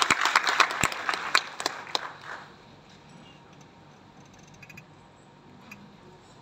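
Audience clapping that dies away over the first two seconds or so. It leaves a faint hall hush with a few small rustles and clicks.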